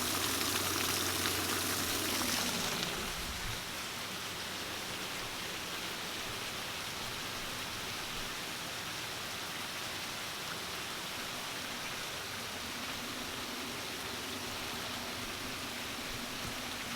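Heavy rain falling steadily. It is louder, with a low hum underneath, for the first three seconds or so, then settles to an even downpour.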